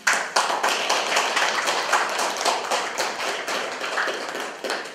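Audience applauding: many hands clapping in a dense patter that starts suddenly and thins out near the end.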